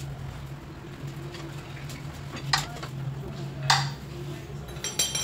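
Metal hand tools and parts clinking and knocking: two sharp clicks in the middle and a louder ringing metallic clink near the end, over a steady low hum.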